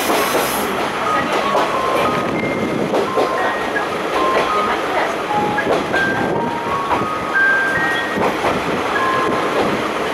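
KiHa 52 diesel railcar running along the line, its engine and wheel-on-rail noise heard through an open side window, with short high tones coming and going over the steady running noise.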